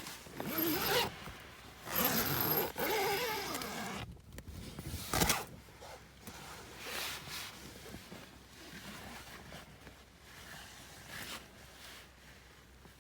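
A zipper being pulled and fabric rustling as a camper gets up from bed, with a single sharp knock about five seconds in, then fainter rustling.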